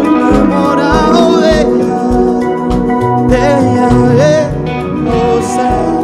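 Live rock band playing: electric guitars, electric bass and drum kit, with a kick drum beating about twice a second and a bending melody line over the chords, and a male singer's voice at the microphone.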